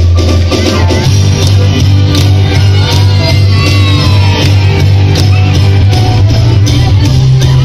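Loud amplified music over a sound system, with a heavy bass line and a steady beat, while a crowd shouts and cheers over it.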